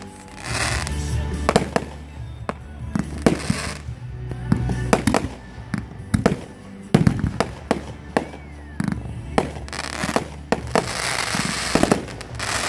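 Aerial fireworks going off: many sharp bangs at irregular intervals, with hissing stretches of a second or two near the start, about three seconds in and from about ten seconds on.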